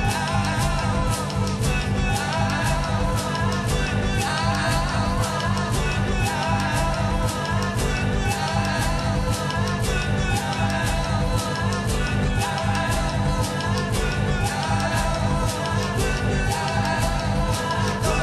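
Live band music: a steady, fast percussive beat over electronic instruments, with a lead vocal sung into a microphone.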